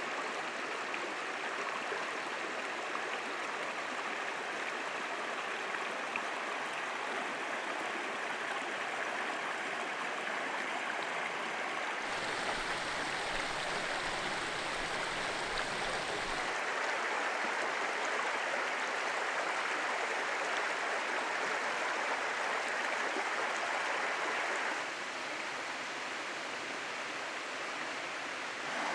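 Rocky mountain brook rushing and splashing over boulders in a steady water rush. A low rumble joins in from about 12 to 16 seconds in, and the rush turns slightly quieter near the end.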